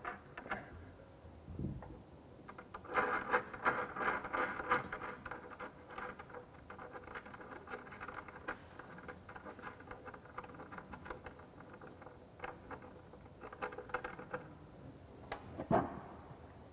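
Hands working at a ceramic wash basin and its pedestal: irregular scraping and rubbing in two spells, with a single sharp knock near the end.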